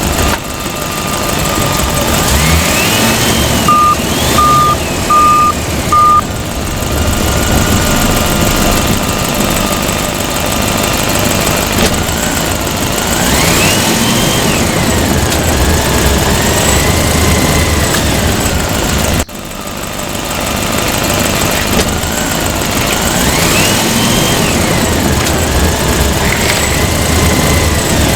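Electronic sound effects from a battery-powered toy construction vehicle: a looping engine rumble with rising and falling tones, and four short, even beeps about four seconds in.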